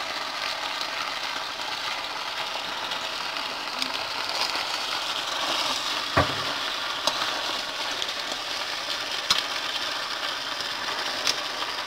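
Pork chop, bell peppers and onion sizzling in an enamel pan as they are stirred with a metal spoon, the spoon scraping and clinking against the pan a few times, most sharply about six seconds in.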